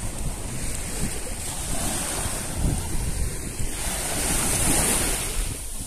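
Small waves washing up on a sandy shore, with one wash swelling louder about four seconds in, and wind buffeting the microphone with a low rumble.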